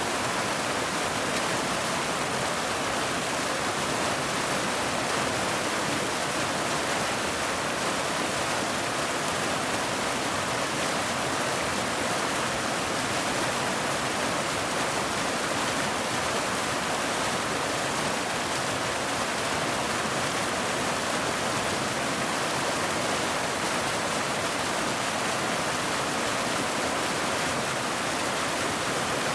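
Waterfall rushing: an even, unbroken hiss of falling water, with little deep rumble.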